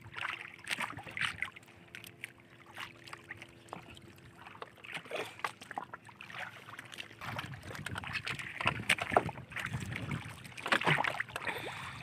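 Water lapping and slapping against the hull of a small wooden outrigger canoe at sea, in irregular splashes and knocks that grow louder and fuller in the second half.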